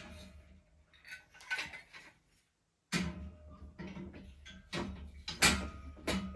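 Metal parts of a plasterboard panel lifter clicking and knocking as they are handled and fitted together: several sharp strikes, the loudest about five and a half seconds in.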